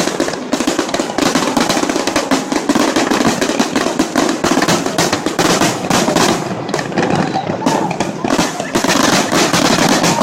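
Fireworks crackling: a dense, unbroken run of rapid pops and cracks, with a faint falling whistle near the end.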